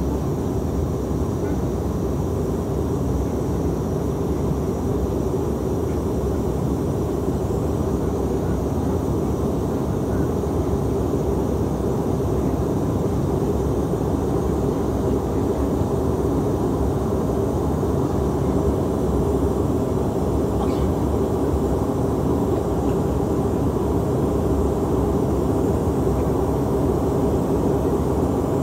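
Steady cabin drone inside a climbing Bombardier CRJ-700 regional jet: its two rear-mounted General Electric CF34 turbofans at climb power and the airflow over the fuselage. It is an even, unbroken hum with a held mid-low tone.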